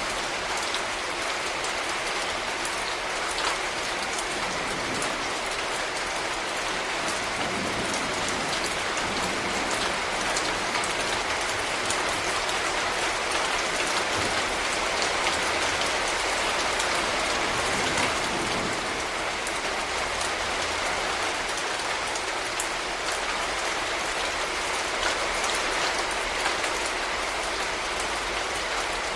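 Steady rain falling on hard surfaces, an even hiss dotted with small drop ticks.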